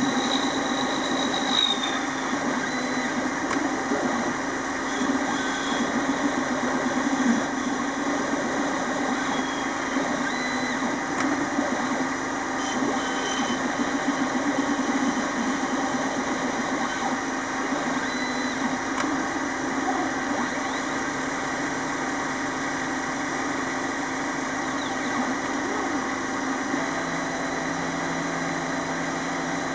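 CNC lathe running steadily while turning a small brass screw from brass rod, a constant machine hum with a noisy cutting sound over it.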